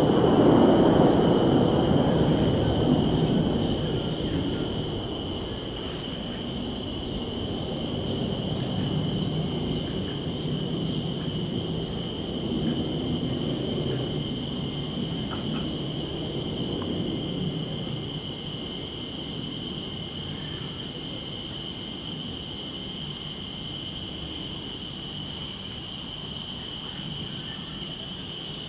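Insects chirring: a steady shrill chorus at two high pitches, with a pulsing trill over it at about two beats a second. Under it runs a low rumble, loudest in the first few seconds and then easing off.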